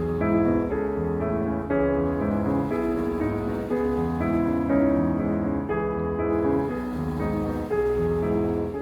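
Gentle piano music, slow held notes and chords.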